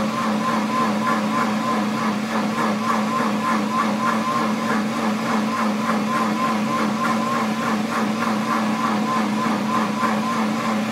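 Pampered Chef Deluxe Cooking Blender running at a steady speed through a timed heated program, its motor giving a steady hum with a higher tone above it that wavers regularly.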